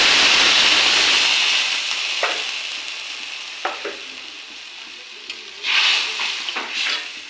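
Water hitting hot oil and fried spiced potatoes in a metal karai, hissing and sizzling loudly at first and slowly dying down to a gentler sizzle. A steel spatula clicks against the pan a few times, and the sizzle swells again briefly near the end as the curry is stirred.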